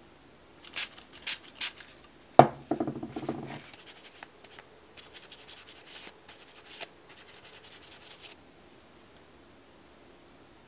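Gel nails being rubbed with a lint-free nail wipe, a soft scratchy rubbing that stops about eight seconds in. Before it come three quick clicks and then a louder knock that rings briefly.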